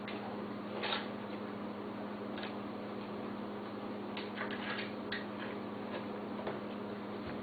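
A dog eating: scattered, irregular short clicks and smacks of mouth and bowl, over a steady low hum.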